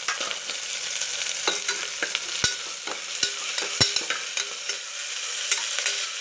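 Chopped onions and slit green chillies frying in oil and ghee in a pressure cooker, with a steady sizzle. They are being stirred, and the utensil knocks and scrapes against the pot several times, most sharply about two and a half and nearly four seconds in.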